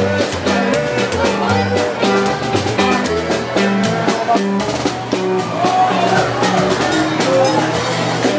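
Loud music with a steady drum beat, a bass line and a melody, over the chatter of a crowded dining hall.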